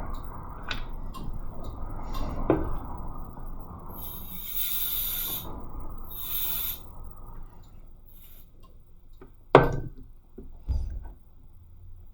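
Handling noise at an electronics repair bench: a few sharp clicks and knocks of small tools, with two short hisses about four and six seconds in.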